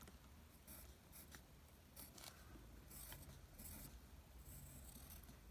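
Faint scratching of a pencil drawing on paper, in a series of short strokes.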